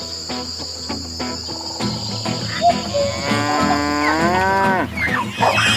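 A cow moos once: a single long call starting about three seconds in, rising slightly and then dropping away at its end.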